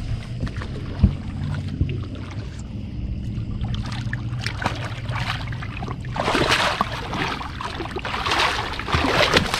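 A big hooked catfish thrashing and splashing at the water's surface beside the boat, in several loud bursts in the second half, over a low steady hum. A single sharp knock comes about a second in.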